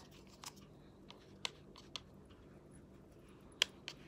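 Scattered light clicks and taps from a cardboard box being opened and a plastic compact powder case being handled, with the sharpest click near the end.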